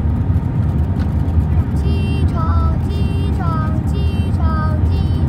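Airbus A320 cabin noise on final approach with flaps extended: a loud, steady low rumble of engines and airflow. From about two seconds in, a high-pitched voice sounds in short repeated calls over it.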